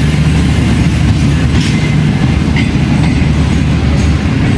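Pakistan Railways express coaches rolling past close by as the train arrives at the platform: a steady, loud rumble of wheels on rail. A few short high clicks sound over it.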